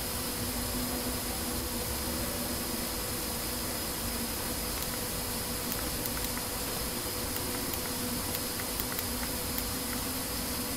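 Steady electrical hum and hiss of background noise, with a few faint short clicks in the second half.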